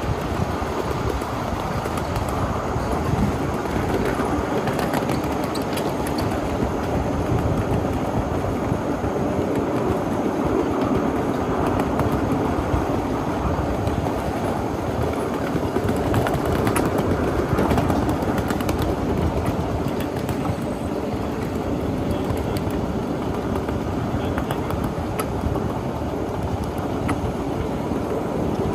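1/8-scale ride-on miniature train rolling along its track: a steady rumble of wheels on the rails, with scattered clicks as the wheels pass over rail joints.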